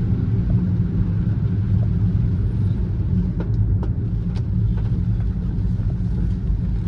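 Car driving at a steady pace: a constant low rumble of road and engine noise, with a few faint ticks about halfway through.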